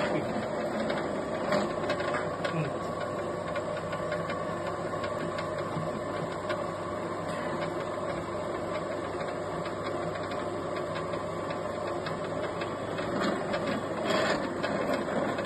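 Small electric noodle-making machine running: a steady motor hum with frequent light clicks from its rollers and cutters as a dough sheet is fed through and cut into noodles. The sound grows briefly louder near the end.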